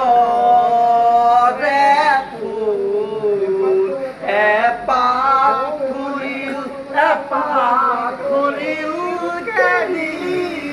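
A man singing a slow, free-flowing melody, with long held notes that waver and slide between pitches.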